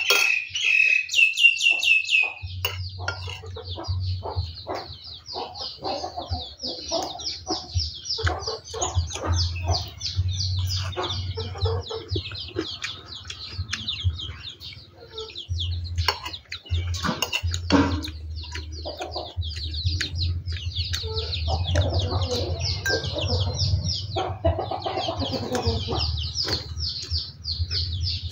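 Birds chirping rapidly and continuously, with chickens clucking, in the countryside. Scattered short clicks and a low steady hum that comes in about two seconds in sit under them.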